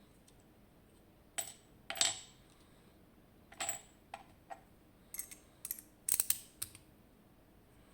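Small metal parts of a zIKON SK6 lock clinking and tapping as it is taken apart by hand: a scattered series of sharp light clinks, busiest about six seconds in.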